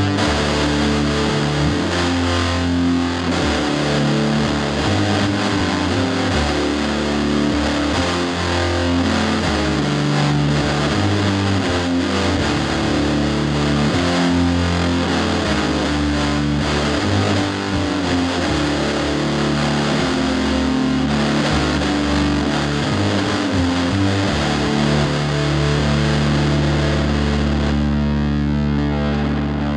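Music led by distorted electric guitar, its held notes changing every second or two.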